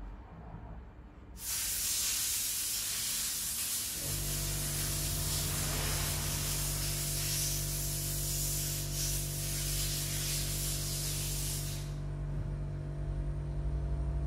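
Water running hard from a tap, hissing as the laptop cooler's fan part is washed under it, starting about a second in and cut off suddenly near the end. A steady low hum with music-like tones joins about four seconds in and carries on.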